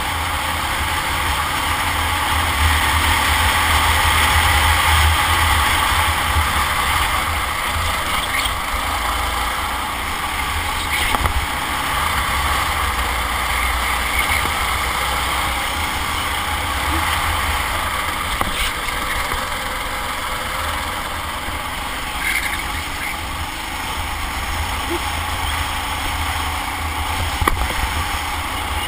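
Kart engine running at racing speed through a lap, with wind buffeting the onboard camera's microphone as a constant low rumble.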